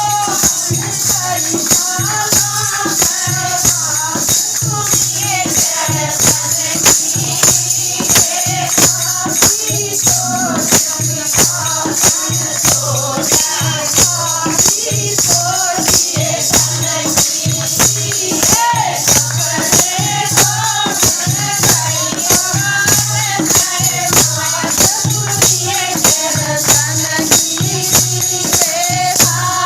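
Hindi devotional bhajan: voices singing over a steady percussion beat with a constant jingling of hand percussion.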